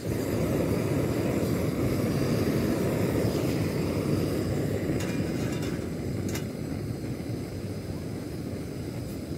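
Portable gas camping stove, just lit with a lighter, burning with a steady low rushing sound as it heats a pot of water. A couple of light clicks come midway.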